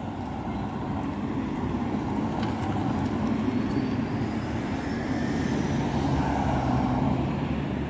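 Road traffic: cars passing close by one after another, their tyre and road noise swelling as the first one comes near, then holding steady.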